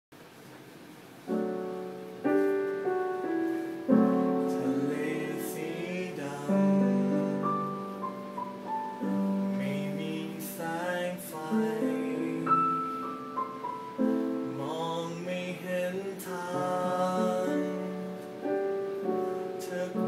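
A man singing a Thai song with piano accompaniment; the piano comes in with chords about a second in and the voice carries the melody over it.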